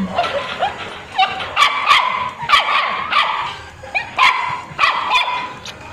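A puppy barking repeatedly in short, sharp, high yips, about eight in the few seconds, with a few brief whines between.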